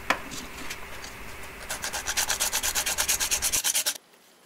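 Hand sanding: rapid back-and-forth strokes of sandpaper on a small workpiece, about six a second, starting after a single sharp tap and cut off abruptly near the end.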